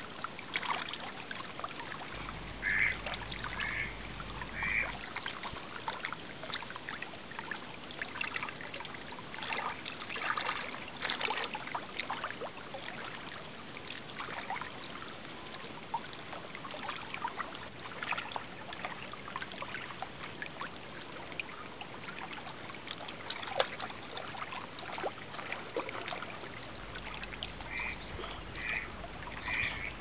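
Small waves lapping and splashing against the lake shore, a steady wash of water full of little irregular splashes. A bird calls three times about three seconds in, and several times again near the end.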